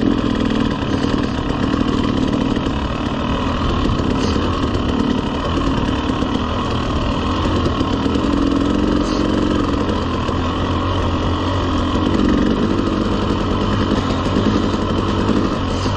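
Dirt bike engine running at a steady, moderate throttle while the bike is ridden along at low speed.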